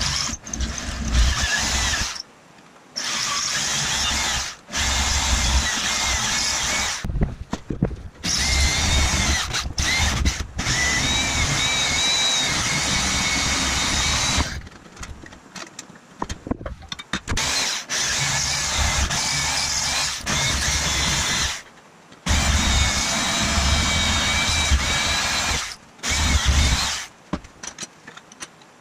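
Handheld electric power tool running in about seven bursts of a few seconds each, switched on and off repeatedly, with a high whine that wavers in pitch in some bursts.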